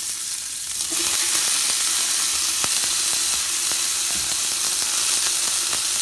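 Chopped onion, sweet pepper, tomatoes and cilantro sizzling as they are tipped into hot oil in a stainless steel pot, the sizzle growing louder about a second in as more of the vegetables go in and then holding steady, with a few faint clicks.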